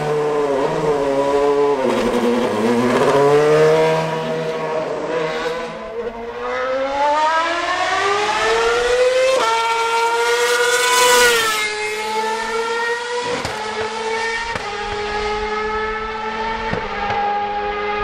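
Formula One car engine at high revs, its pitch falling in the first couple of seconds, then climbing for about seven seconds under acceleration with a short dip near ten seconds in, then dropping sharply about twelve seconds in and running fairly level, with a few brief breaks as gears change.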